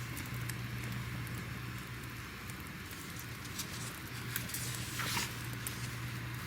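Crackling fire: irregular small pops and snaps over a steady hiss and low hum, with one louder snap about five seconds in.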